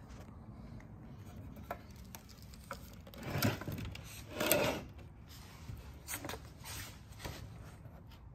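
Handling noise from a handheld camera brushing against cables and cabinet panels inside a machine: two short rubbing sounds a little past the middle and a few light clicks, over a low steady hum.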